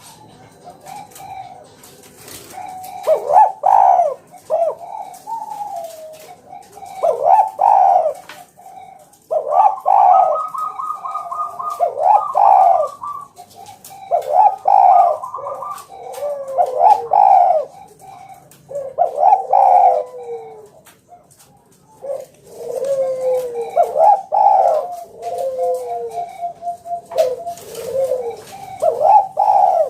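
Spotted dove (tekukur) cooing in a run of repeated phrases, each a second or two long with short pauses between.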